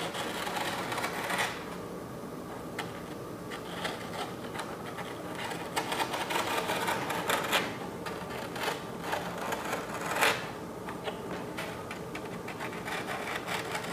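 The back of a knife blade dragged along the edge of a paper pattern, scoring a line into a foam carving block: faint, irregular scratching with small ticks and a few louder scrapes.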